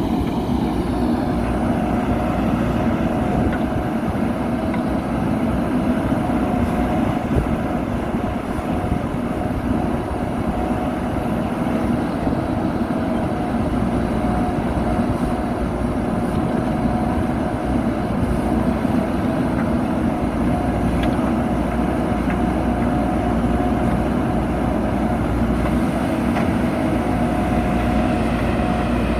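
Backhoe loader's diesel engine running steadily, with an even pitch.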